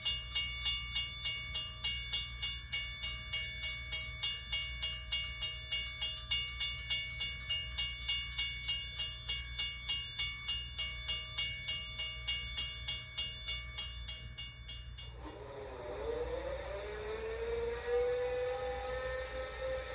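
A railroad bell rings rapidly, about three strikes a second, then cuts off about 15 seconds in. A whine follows that dips, then rises in pitch and holds steady.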